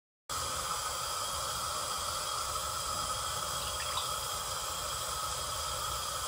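Cooking oil being poured into a steel karahi, a steady liquid pour, with a couple of faint ticks about four seconds in.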